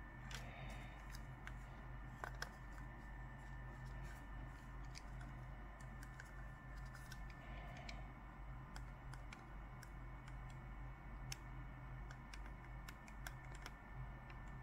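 Scattered light clicks and taps from a computer mouse being handled, with a louder pair about two seconds in, over a steady electrical hum and a faint high tone.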